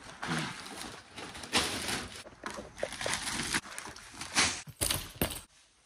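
Bags of ice being emptied into a tub for an ice bath: a run of irregular clattering and rustling bursts that stops abruptly near the end.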